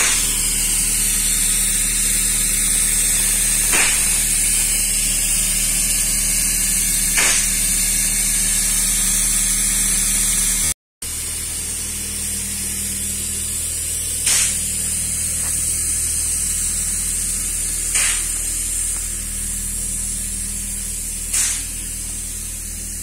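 Paint spray gun applying primer to a steel ship's hull: a steady high hiss of spraying over a steady low machine hum, with a few short clicks. The sound cuts out briefly about eleven seconds in.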